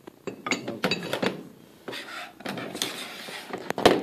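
Small steel lathe parts, spoked handwheels and handles, clinking and clanking against each other and a metal pan as they are handled, with a scraping stretch in the middle and a sharp metal knock near the end.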